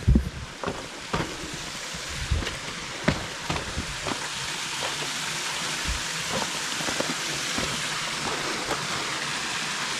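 Footsteps on stony ground, several knocks in the first few seconds, over the steady rush of a stream that grows slowly louder.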